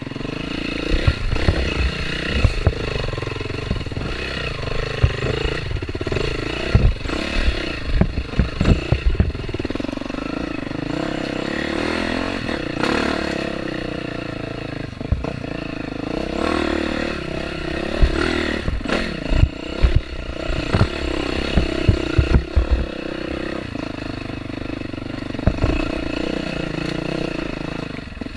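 Off-road dirt bike engine running on a trail, its pitch rising and falling as the throttle is worked, with frequent low thumps and knocks scattered throughout.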